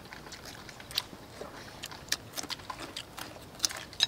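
Chewing and mouth clicks of people eating roast chicken legs and lettuce by hand: a scatter of short, sharp clicks, a few a second, loudest near the end.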